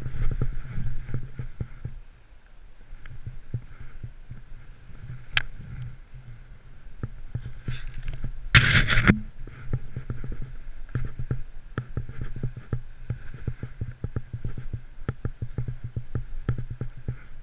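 Snowboard riding through deep powder, heard through an action camera's housing as a low, muffled rumble with constant knocking and clicking, and one loud rush of noise about eight and a half seconds in.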